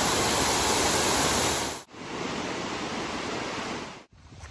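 Water cascading down a tall water-wall fountain into a pool: a steady, even rush. About two seconds in it cuts sharply to a quieter steady rush.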